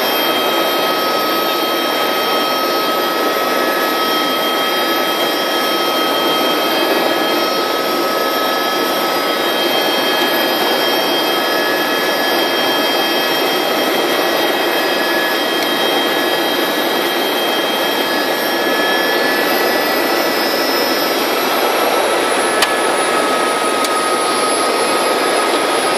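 Helicopter engine and rotor noise heard inside the cabin: a loud, steady drone with a constant whine. Over the last few seconds a high whine slides down in pitch, with a single faint click shortly before the end.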